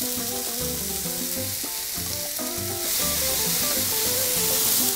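Diced potato, onion, tomato and chile sizzling in oil in a frying pan, stirred with a wooden spatula. The sizzle gets louder about three seconds in.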